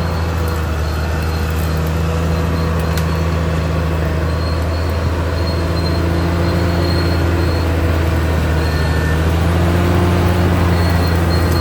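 Caterpillar D6R XL bulldozer's diesel engine running steadily under load, with a faint high squeal from the running gear coming and going.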